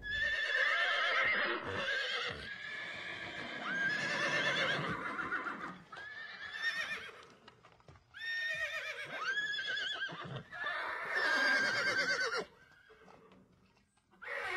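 Horses whinnying again and again: a string of long, quavering neighs, some overlapping, which fall quiet about two seconds before the end.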